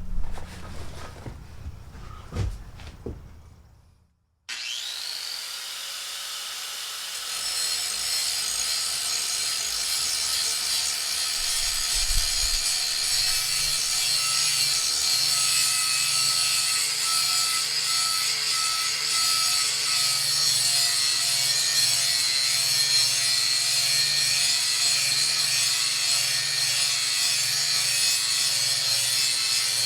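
A few knocks of handling, then an electric grinder spins up with a rising whine and grinds steadily along the steel edge of a lawn mower blade, a continuous rasping hiss over a steady whine.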